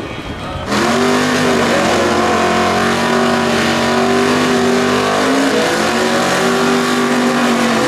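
Two Camaro drag cars doing burnouts side by side, engines held at high revs while the rear tyres spin and smoke. The sound is a loud, steady drone with hiss that starts abruptly about a second in.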